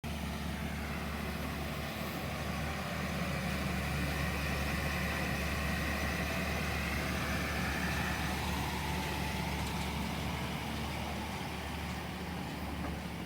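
Tata Hitachi 200 excavator's diesel engine running steadily while digging. A high whine swells in about two seconds in and fades after several seconds.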